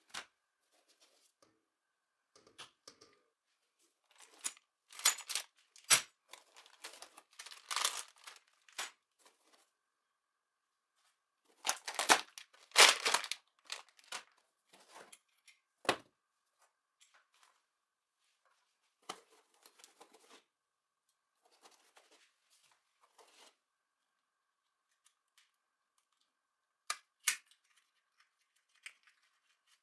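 Packaging being handled as parts of a CNC router kit are pulled from a foam insert: rustling, crinkling and scraping in two busy spells in the first half, then scattered light clicks and taps.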